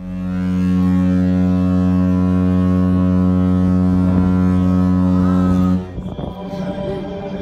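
A large cruise ship's horn sounds one long, deep blast that cuts off about six seconds in. It is the signal of a ship leaving port.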